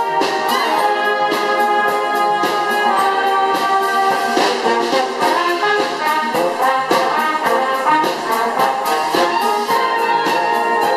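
Brass band of trumpets, trombones, euphoniums and tubas playing a piece together under a conductor, with held chords and moving melody lines.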